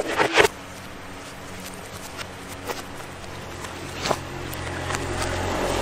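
A long wooden pole knocking against coconuts roasting in a smouldering husk fire: a cluster of sharp knocks at the start, then a few lighter clicks. A low motor hum grows louder through the second half.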